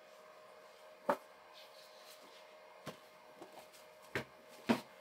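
Photo prints and paper sheets handled in gloved hands and set against a shallow print box: a few short sharp taps and light paper rustles, the loudest about a second in and near the end, over a faint steady hum.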